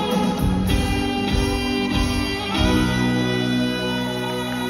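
Live band with violins and guitar playing a slow closing instrumental passage of held chords, changing chord twice.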